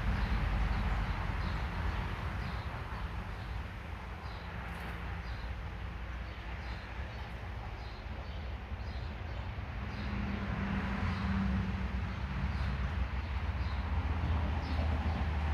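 Small birds chirping: short high chirps, repeating every half second to a second, over a steady low rumble.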